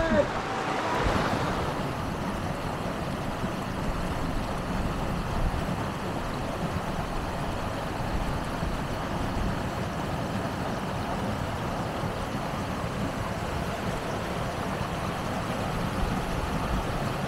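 Mountain stream water running steadily over rocks and shallows.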